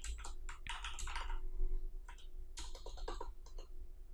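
Computer keyboard typing: irregular clusters of quick keystrokes over a steady low hum.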